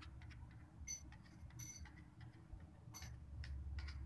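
Faint irregular clicks and ticks of a steel knife cutting soft barfi and touching the steel plate beneath; two of the ticks, about a second and under two seconds in, ring briefly like metal on metal.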